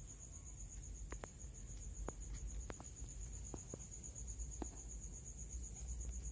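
Cricket trilling steadily, one unbroken high, finely pulsing note, with a few scattered soft clicks in the middle.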